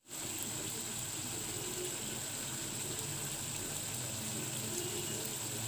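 Thick potato-and-onion curry simmering in a kadhai, a steady bubbling hiss that starts abruptly.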